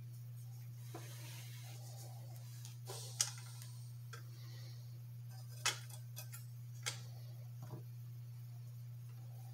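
A handful of short, sharp clicks and light metal taps, a second or more apart, from a center draft oil lamp's burner being handled: locked back together, lit and its wick knob turned. Under them runs a faint steady low hum.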